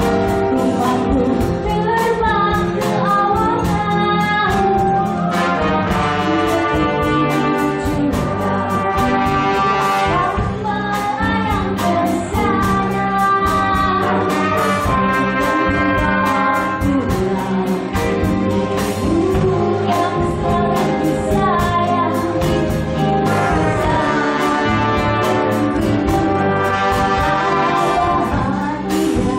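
A live band plays a song: a brass section and electric guitars over a steady drum beat.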